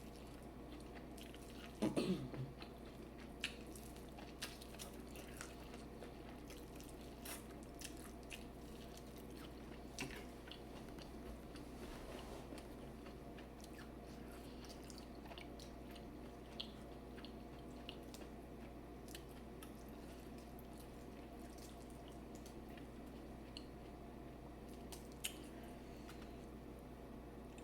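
Faint chewing and mouth sounds of a person eating seafood boil, with scattered small clicks and a louder cluster of sounds about two seconds in, over a steady low hum.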